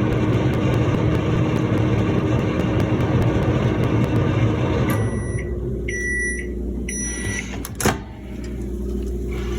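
Microwave oven running with a steady hum that stops about five seconds in, then three short end-of-cycle beeps about a second apart, followed by a sharp click.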